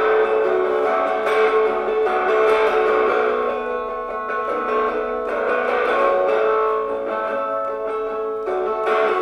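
Guitar played through a small belt-clipped pocket amplifier, strumming sustained chords in an instrumental passage; the sound is thin, with almost no bass.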